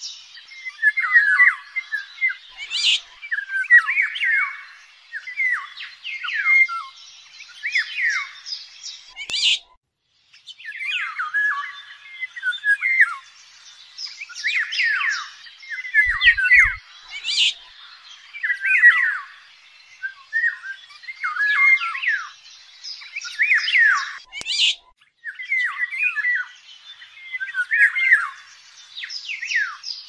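Eurasian golden orioles calling: a busy run of quick whistled and harsh chirping notes, in phrases broken by short pauses about ten seconds in and again near twenty-five seconds. This is a hunting call recording used as a lure.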